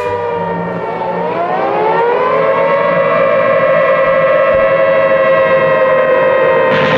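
An air-raid siren sound effect in a song recording. Its wail dips, rises about a second in and then holds, sliding slowly lower. A rushing noise comes in near the end.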